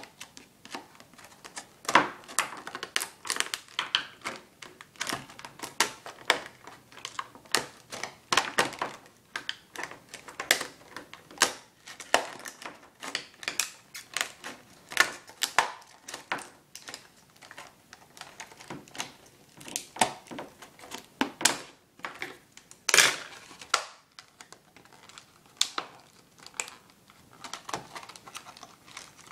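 Plastic retail packaging being handled and forced open: irregular crackles, clicks and snaps of stiff plastic, with a louder, longer crackle about twenty-three seconds in.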